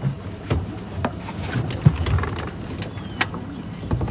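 Boat motor running low and steady, with scattered sharp knocks and clicks of gear handled on the deck.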